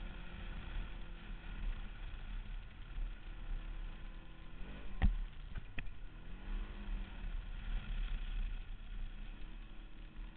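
Small off-road buggy's engine running as it drives over a dirt track, its pitch rising and falling several times as it speeds up and eases off, over a steady low rumble. Two sharp knocks come about five seconds in, the first the loudest sound.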